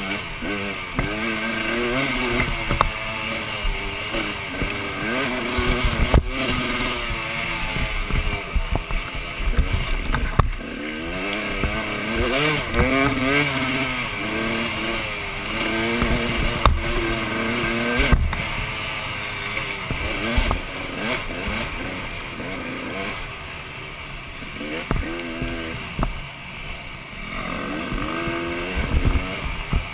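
Dirt bike engine heard close from on board, revving up and falling back again and again as the rider works the throttle and gears along the trail. A few sharp knocks break in along the way.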